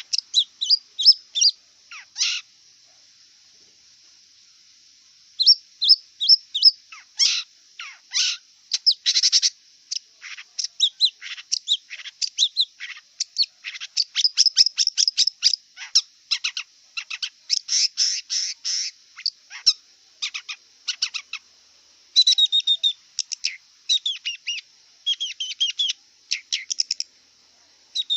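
Long-tailed shrike (cendet) singing: rapid runs of short, sharp, high chirps and trills. It pauses for about three seconds near the start, then chatters almost without a break.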